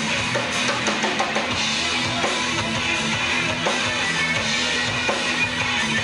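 Live rock band playing: electric guitars, bass guitar and drum kit going steadily and loudly, heard from the crowd.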